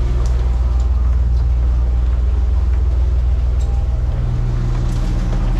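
A ferry's engine droning steadily, a loud, even low hum with a few faint clicks over it.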